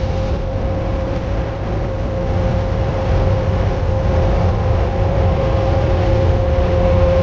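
Diesel engine of farm harvest machinery running steadily under load, with a steady whine over its low rumble, growing slowly louder.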